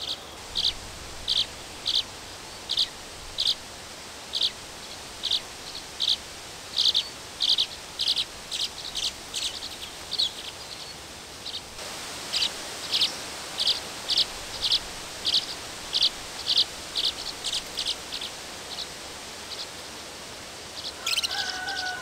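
Nesting swallows chirping at a nest box: a short, high call repeated steadily, roughly one to one and a half a second, coming faster, about two a second, in the second half.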